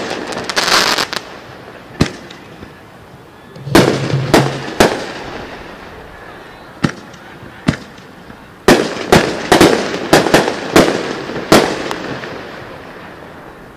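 Aerial display fireworks bursting overhead: sharp booming reports, some single and some in quick clusters, ending in a rapid run of about seven bursts. Each report trails off in an echoing rumble, and a short spell of crackling follows a burst near the start.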